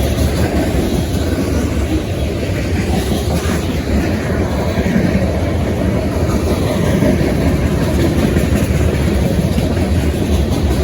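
A train rolling past close by: a loud, steady rumble of its wheels and cars on the track.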